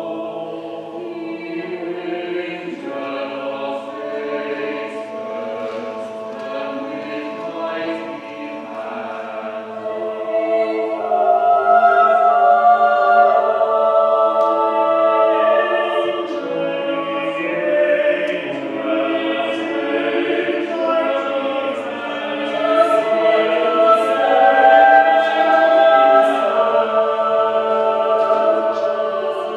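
Mixed choir of men and women singing sustained chords in several parts, growing louder about ten seconds in.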